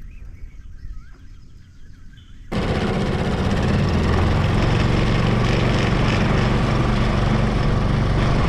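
A small aluminium boat's outboard motor running steadily under way with a loud rushing noise, starting abruptly about two and a half seconds in. Before that, a quieter stretch with faint high chirps.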